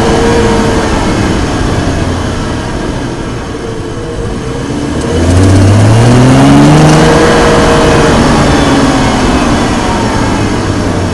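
BMW 335i's N55 turbocharged straight-six pulling hard in gear from low revs, its pitch rising for a couple of seconds about five seconds in, then easing off. The owner hears an odd noise here that comes only under firm acceleration with the engine warm, and that follows engine revs rather than road speed.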